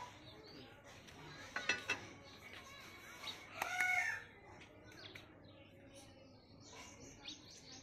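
A bird calls once about halfway through: a short pitched cry that bends in pitch and stands out over faint steady background noise.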